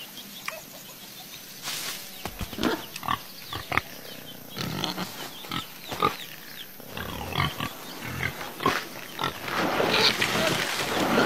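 An animal's short calls, repeated at irregular intervals and growing denser and louder near the end.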